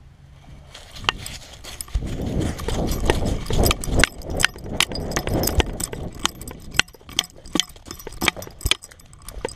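A dog running with a camera harness on its back: the irregular thump and jostle of its gait, with many sharp clicks and rattles from the mount. It is loudest during the run in the middle and eases to sparser clicks near the end, once the dog reaches concrete.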